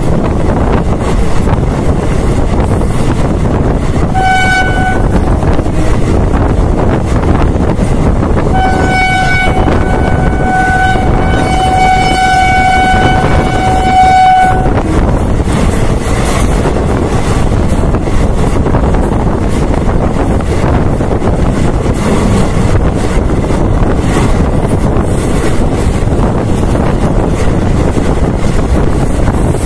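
Passenger train running at speed, heard from an open coach doorway: steady wind and running noise, with the train's horn sounding one steady note, a short blast about four seconds in and a long blast of about six seconds from about eight seconds in.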